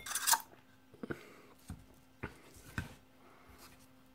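Collapsible stainless steel cup being handled: a short metallic clatter of its nesting rings at the start, then a few faint taps and knocks as the extended cup is set down and settled.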